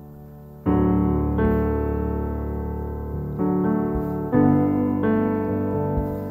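Slow, gentle solo piano music: a soft held chord, then new chords struck about every one to two seconds, each ringing on and fading.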